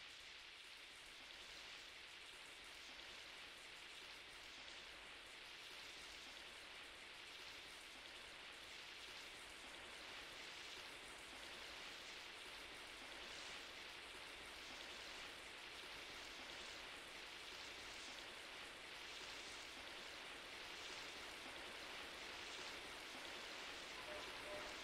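Faint, steady rain-like hiss with slow, soft swells, slowly growing louder, opening an ambient electronic track; a few faint tones come in near the end.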